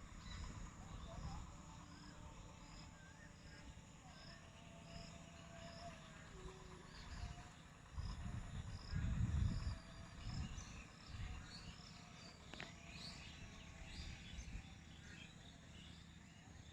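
Faint outdoor ambience of chirping insects and birds: a regular high chirp repeating a little under twice a second through the first half, then scattered higher calls. Low rumbling bursts come about eight to ten seconds in.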